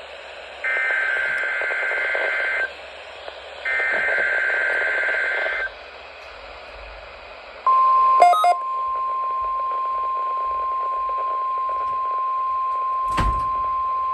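NOAA Weather Radio emergency alert test: the end of one and then two more warbling SAME digital header bursts, each about two seconds long with a second's gap between them, then radio hiss. A little past halfway the steady 1050 Hz warning alarm tone comes on and holds, with a brief crackle just after it starts and a sharp click near the end.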